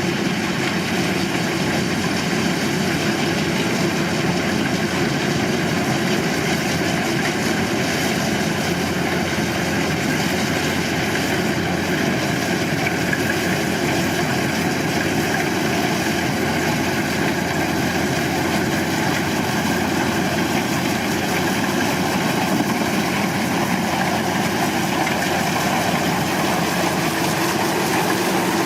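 Combine harvester running steadily, its engine and machinery making an even, unchanging noise.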